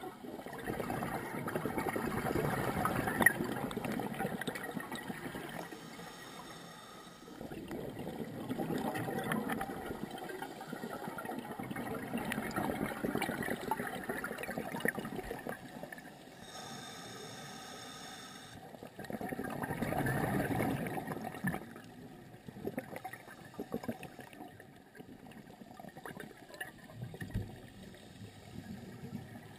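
Scuba diver breathing through a regulator underwater: bubbling rushes of exhaled air lasting a few seconds each, separated by quieter pauses.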